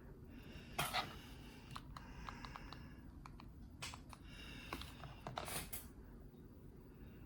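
Ceiling fan running with a steady low rushing hum, with a scatter of light clicks and rattles over it about a second in, around two seconds and again near four and five and a half seconds.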